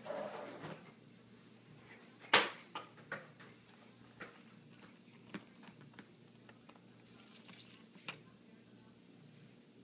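A few scattered sharp clicks and knocks over quiet room tone, the loudest about two seconds in.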